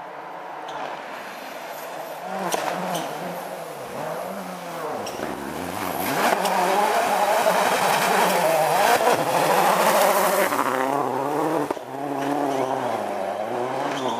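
Rally car engine at full throttle, its pitch rising and dropping again and again through gear changes. It grows louder as the car approaches, is loudest from about halfway through, and eases off briefly near the end.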